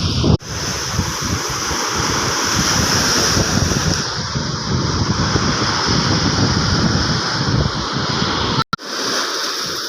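Surf washing on a beach, with wind buffeting the microphone in uneven low gusts. The sound cuts out briefly twice, once about half a second in and once near the end.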